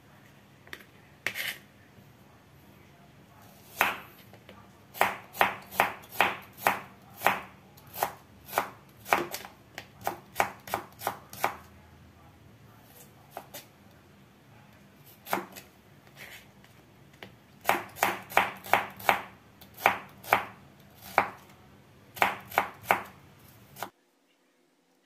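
Knife chopping shallots on a plastic cutting board: sharp taps in quick runs of about three a second, with short pauses between runs. The sound cuts off abruptly near the end.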